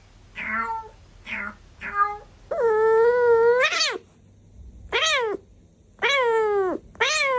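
Domestic cat meowing repeatedly: three short meows, then one long drawn-out meow of about a second and a half, then three more meows that each drop in pitch at the end.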